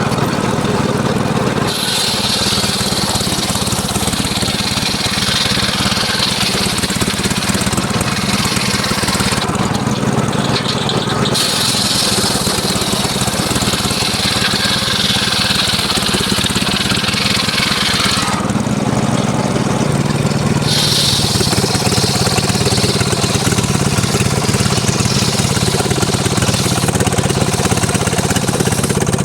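Engine-driven mobile circular sawmill running steadily while its blade saws mahogany, the cut giving a high rasping hiss over the engine. The cutting noise starts about two seconds in and drops out twice for a couple of seconds, around ten and nineteen seconds in, while the engine runs on.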